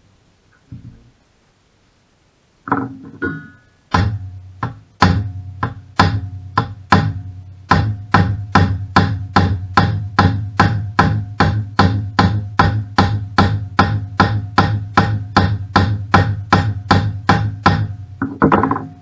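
Hammer blows on metal, a few scattered strikes and then a steady run of about two or three a second, each ringing briefly.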